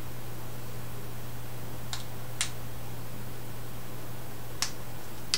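Tail-cap push switch of an Inova T2 tactical flashlight clicking four times, sharp single clicks spaced irregularly over a few seconds, as the light is switched on and off.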